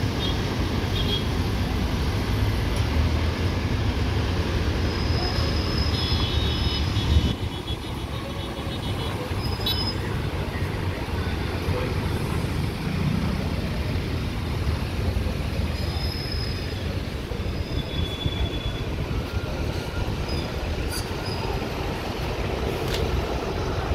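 Road traffic: a steady hum of passing vehicles with a heavy engine rumble that drops away suddenly about seven seconds in. A few short high-pitched tones sound now and then over the traffic.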